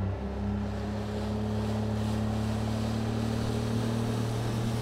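A bass boat's outboard motor running steadily at speed: a low engine drone over the rush of water and wind.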